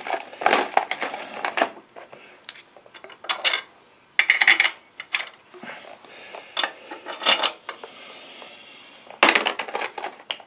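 Small metal bolts clinking and rattling in clusters of sharp clicks as a hand rummages through a container of hardware.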